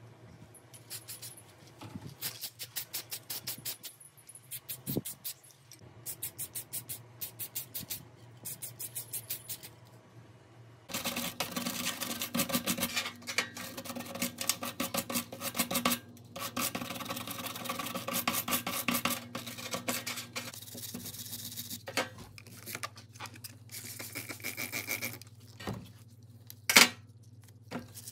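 A stiff brush scrubbing the old drill's small switch parts wet with degreaser: quick, even back-and-forth strokes at first, then denser, continuous scrubbing from about eleven seconds in. A single sharp knock comes near the end.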